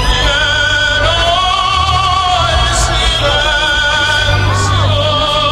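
Music with an operatic voice singing long, wavering notes with vibrato over a steady bass line.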